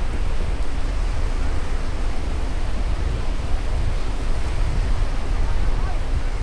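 Sea surf washing onto the beach, mixed with wind rumbling on the microphone: a steady noise with a heavy low rumble.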